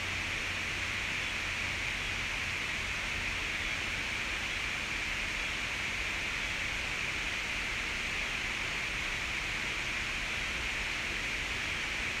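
A steady, even hiss with a low hum beneath it. No distinct events stand out.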